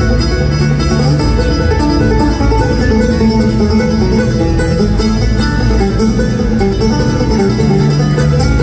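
Live bluegrass string band playing through an arena sound system: acoustic guitars, mandolin, fiddle and upright bass together at a quick, steady drive, heard from out in the audience.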